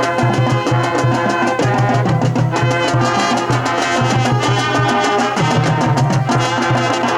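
High school marching band playing, with brass over a drum line keeping a steady beat.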